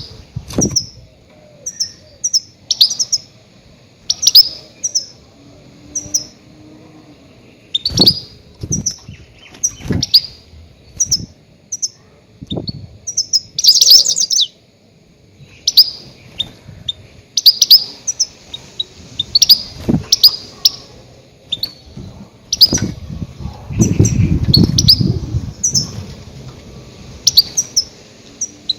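Goldfinch calls: short, sharp, high chirps given in irregular runs, the kind of calls used as a lure to trap grey-headed goldfinches. A few soft knocks are heard, and a low rumble comes in about three-quarters of the way through.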